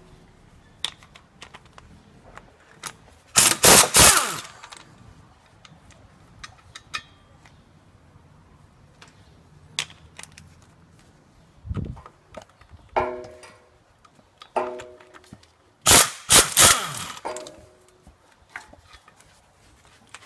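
Propeller-shaft flange bolts being spun out of the rear differential with a wrench on an E14 Torx socket, in two loud bursts of rapid rattling clatter about four and sixteen seconds in. Scattered metal clicks and a few short squeaks come between the bursts.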